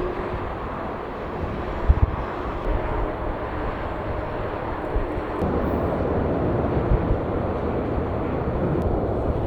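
Jet airliner engine noise heard from the airport perimeter, a steady rush that steps up and grows louder about halfway through, with irregular low gusts of wind buffeting the microphone.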